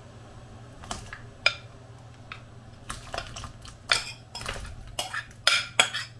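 Kitchen utensils clinking and knocking against a soup pot as chopped potatoes and carrots go into the fish soup: scattered sharp clicks at first, then coming quicker and louder in the second half.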